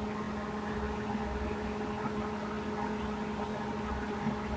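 Steady low hum with a constant hiss: room background noise, with no distinct strokes or events.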